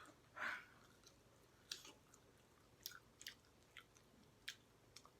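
Faint chewing of chicken legs: soft, scattered mouth clicks and smacks every half second to second, with a short breathy noise about half a second in.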